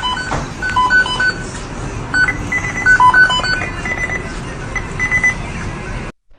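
Short electronic beeps at three or four different pitches, in quick uneven runs like a simple tune, over a steady hiss. The sound cuts off suddenly near the end.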